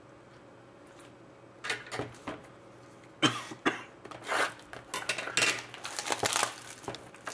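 Scissors cutting open a cardboard trading-card box, with the box handled in the hands: a run of sharp snips, clicks and rustles starting about two seconds in and coming thicker in the second half.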